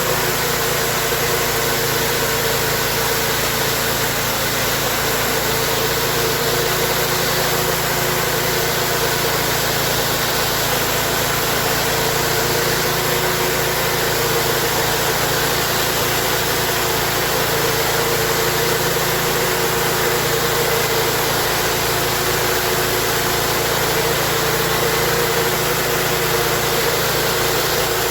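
Pressure washer running steadily: an engine's hum under the even hiss of the water jet.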